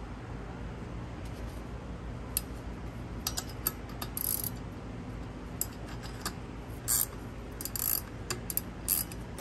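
Ratcheting wrench clicking in short, irregular runs as the top-mount nut on a car's rear strut is tightened, starting about two seconds in.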